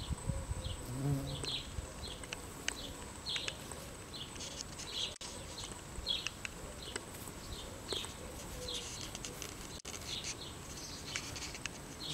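Faint buzz of a bumblebee working a hibiscus flower in the first couple of seconds, over a steady string of short, high chirps about two a second.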